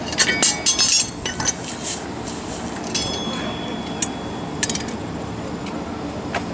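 Small pieces of metal clinking and tapping together, then a single light strike on metal about three seconds in that rings with a clear high tone for over a second.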